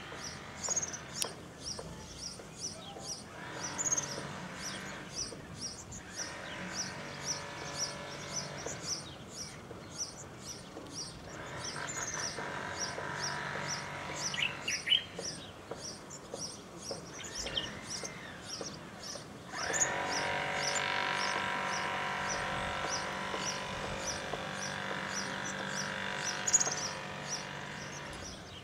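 A small songbird repeating short, high chirps, about two a second, in a steady series. A lower rumbling noise rises and falls underneath in several stretches, the longest in the latter half.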